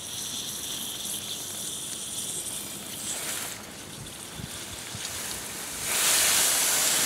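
Water hissing loudly as it sprays out of a pressurized water line that a ratchet pipe cutter has just cut through, starting suddenly about six seconds in and holding steady. The line was still live, which the owners guess is pressure left in the tank.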